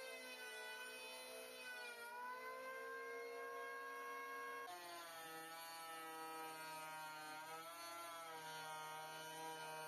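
Background music of sustained, slowly changing chords, shifting to new chords about two seconds in and again about halfway through.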